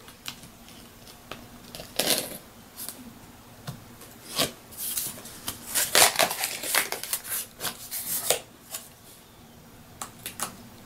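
Packing tape on a cardboard box being cut with a small blade, giving scratchy slitting strokes and cardboard scraping and rustling. The strokes come in a dense run from about halfway through.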